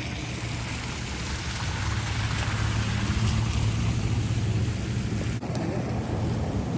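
Rain-swollen arroyo rushing, a steady wash of water noise over a deep rumble, which briefly drops out about five seconds in.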